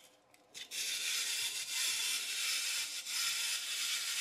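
Clockwork wind-up robot toy running on its spring after being wound through its pencil-sharpener key: a steady, high-pitched whir of the little gear train and walking mechanism. It starts under a second in, just after a couple of soft clicks.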